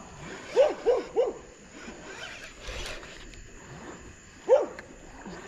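A dog barking: three quick barks about half a second in, then one more near the end.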